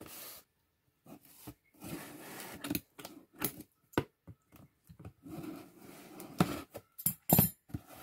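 Scissors cutting through the packing tape and cardboard of a parcel box: a run of irregular snips and scrapes, the loudest near the end.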